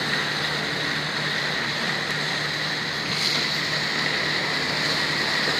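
A boat's engine running steadily underway, with water rushing along the hull.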